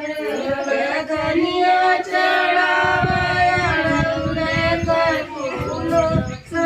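Devotional bhakti song: a voice singing long, held notes in a chant-like melody, with low drum strokes underneath from about three seconds in.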